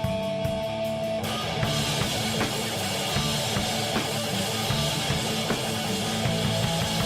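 Punk rock song with distorted electric guitar. A held guitar chord gives way about a second in to the full band, with drums coming in.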